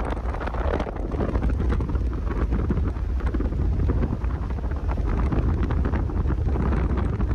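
Wind buffeting the microphone of a moving car: a loud, steady rush with a heavy low rumble that wavers up and down.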